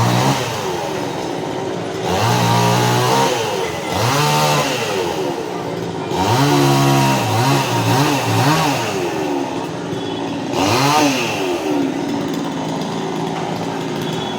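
Chainsaw engine revving up and falling back again and again, about every one to two seconds, as in cutting up a fallen tree; it runs steadier near the end.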